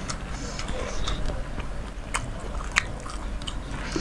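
Close-up chewing of soaked fermented rice (panta bhat) with hilsa fish: wet mouth clicks and smacks, with one sharper click nearly three seconds in, over a low steady hum.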